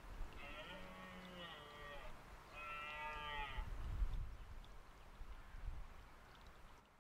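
Red deer stag roaring (bolving) twice during the rut: a faint, pitched call of about a second and a half, then a shorter second call about two and a half seconds in.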